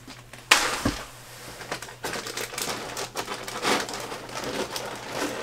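Plastic packs of soft fishing baits crinkling and rustling as hands dig through a cardboard shipping box, with a sharp, loud crackle about half a second in and small clicks and rustles after it.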